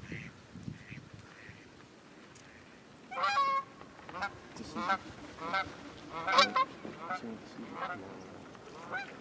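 A series of loud honking waterfowl calls starting about three seconds in. The first call is the longest, and shorter calls follow about one every second.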